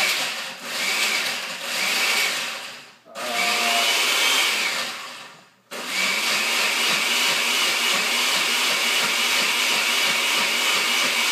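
Countertop blender pulsed twice in bursts of about three seconds, the second winding down as the button is let go, then about halfway through running steadily on its liquefy setting with a constant high whine, churning a thick mix of chicken nuggets, fries, apple slices and apple juice.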